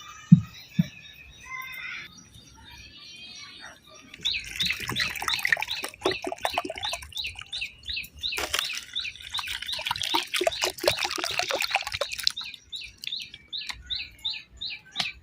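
Birds chirping: a dense, busy chorus of many high chirps from about four seconds in, thinning near the end to a regular run of single chirps, about three a second. Two short low knocks come just before it starts.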